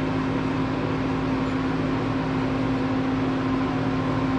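Steady mechanical hum of machinery running in a metalworking shop, with a few steady low tones over an even whirr and no change in level.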